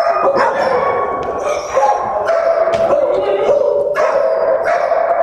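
Kennelled dogs barking and howling, long drawn-out howls of a second or two repeating and overlapping with sharper barks.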